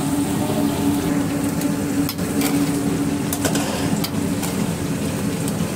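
A metal ladle stirring thick curry gravy with chicken pieces in a metal pan on the stove, with a few sharp knocks of the ladle against the pan, over a steady low kitchen hum.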